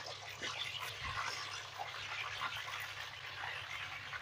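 Diced raw potatoes deep-frying in hot oil in a wok, just added: a steady sizzle and bubbling with many small crackles and spits.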